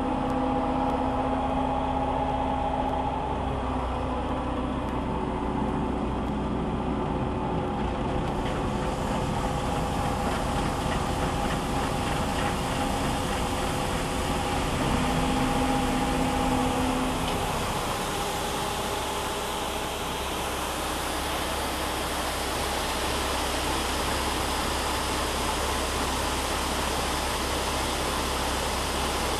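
Combine harvester's engine running steadily with a continuous hum. About eight seconds in a steady rushing hiss joins it and stays to the end.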